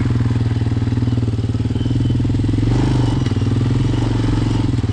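Hawk 250 motorcycle's single-cylinder four-stroke engine idling steadily with an even pulsing beat, running on a newly installed carburetor, with a slight shift in pitch about three seconds in.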